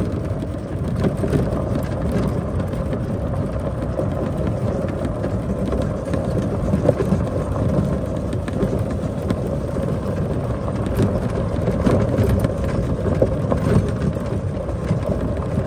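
New Holland Workmaster 75 tractor's diesel engine running steadily as the tractor travels along a gravel driveway, with a faint crackle of gravel under the tyres.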